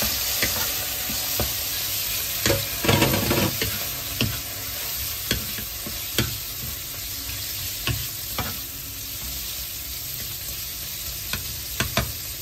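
Raw prawns sizzling in hot oil with garlic and chili in a stone-coated non-stick wok, stirred with a wooden spatula that scrapes and knocks against the pan now and then, most busily about two and a half seconds in.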